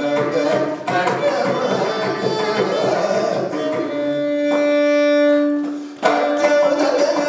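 Carnatic vocal music in raga Purvikalyani: a male voice sings with drum accompaniment. About four seconds in, a long held note swells, then breaks off shortly before the full music comes back.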